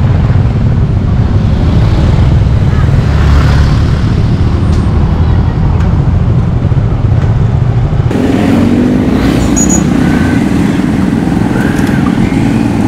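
Riding a two-wheeler through traffic: a loud, heavy rumble of wind and engine. About eight seconds in it drops away suddenly to a lighter, steady engine hum with other traffic around.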